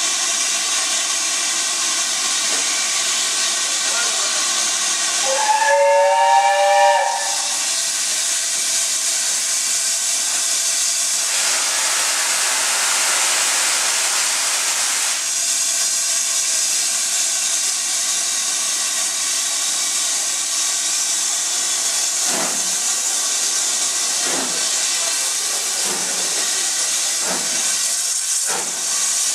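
BR Standard Class 7 Pacific steam locomotive 70000 Britannia hissing steam steadily; its whistle gives one short blast about six seconds in, and a louder rush of steam follows a few seconds later. Near the end it starts away, its exhaust beats coming slowly at first, then faster.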